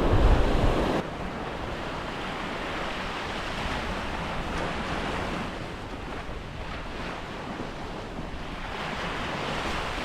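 Surf washing onto the beach with wind buffeting the microphone, loudest for about the first second, then a steadier, quieter wash of waves.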